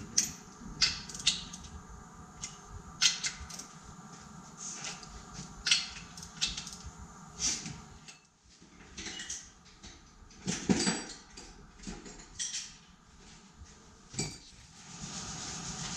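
Metal hand tools clinking and tapping against the Hall Scott engine's steel valve gear: irregular sharp metallic clinks, roughly one a second.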